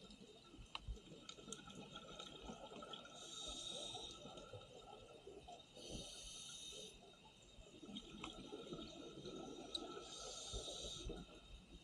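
Scuba regulator breathing heard underwater at double speed: three hissing breaths about a second long, roughly every three to four seconds, over a faint crackling, bubbling background with a few sharp clicks.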